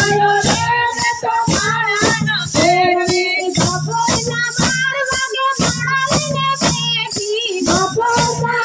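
Women singing a Gujarati devotional bhajan together, led by a voice through a microphone, with wooden kartal clappers and their metal jingles struck in a steady beat of about two to three strokes a second.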